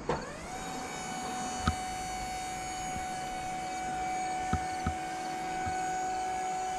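Boom lift's battery-powered electric hydraulic pump starting up: a whine that rises over about half a second, then runs at a steady pitch. A few light knocks sound partway through.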